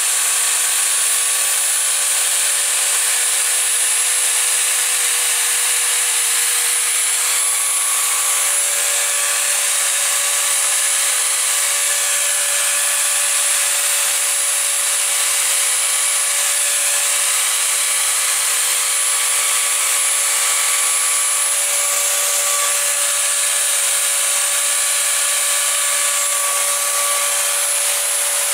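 Homelite electric chainsaw running continuously at one steady speed, an even, unchanging whine of motor and chain.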